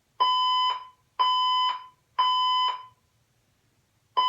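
Fire alarm sounding in the temporal-three pattern: three beeps of about half a second each, one a second apart, then a pause, with the next round starting near the end. This is the standard evacuation signal.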